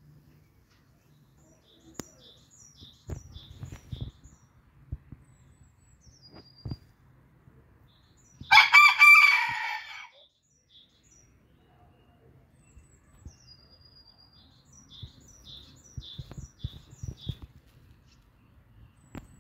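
Booted bantam rooster crowing once, about eight and a half seconds in: a single crow of under two seconds, by far the loudest sound here. Faint short runs of small-bird chirps come before and after it, with a few soft low thumps.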